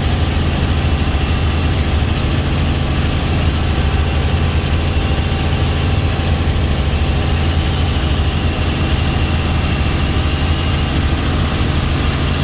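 Robinson R44 helicopter in flight, heard from inside the cabin: the steady, loud drone of its piston engine and rotor, holding an even pitch throughout.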